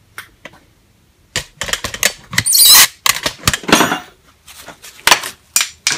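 Metal hand tools and loose screwdriver bits clattering and clinking as they are picked up, shifted and set down on a workbench. The loudest part is a scraping rattle about two and a half seconds in.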